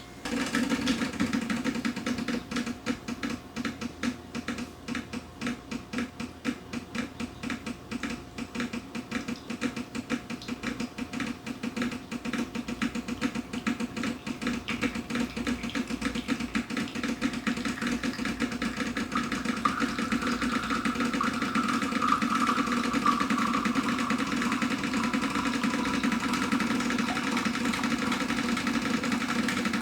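Decent espresso machine's pump running through a shot, starting suddenly. It pulses rapidly for the first several seconds, then settles into a steadier hum.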